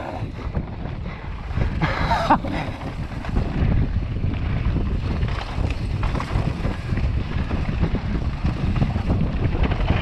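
Wind buffeting the camera microphone over the rumble and clatter of a downhill mountain bike's tyres and frame running fast over a dusty, rocky dirt trail. A brief higher sound cuts through about two seconds in.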